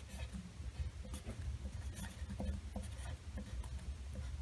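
Pencil writing on a sheet of paper: faint, irregular scratches and small taps of the lead as figures are written.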